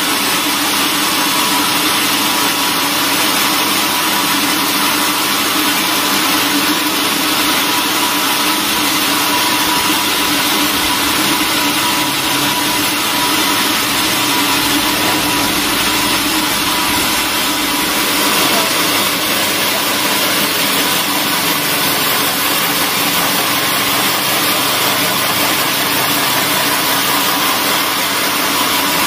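Large vertical band resaw running steadily, its blade ripping boards from a thick hardwood plank fed past it. It makes a constant, even noise with a steady hum underneath.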